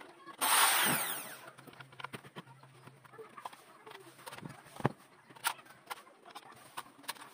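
A short burst of a power tool's motor, about a second long, falling in pitch as it winds down. Then scattered light clicks and knocks as tools and aluminium profiles are handled on the bench.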